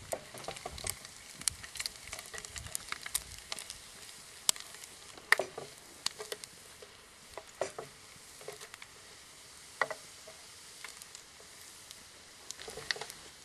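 Bacon frying in a pan over a small wood-fired stove: a faint steady sizzle with frequent sharp pops and crackles.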